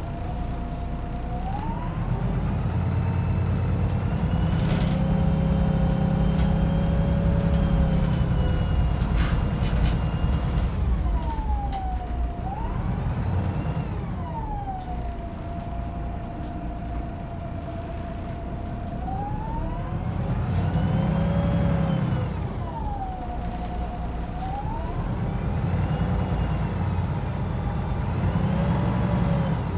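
Wright Pulsar 2 single-deck bus heard from inside the saloon. Its diesel engine pulls away and eases off several times, and a whining drivetrain tone rises and falls with the revs.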